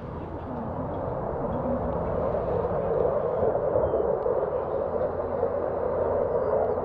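Twin Pratt & Whitney F100 turbofan engines of an F-15C Eagle in flight: a steady rushing jet noise that grows louder as the fighter comes closer.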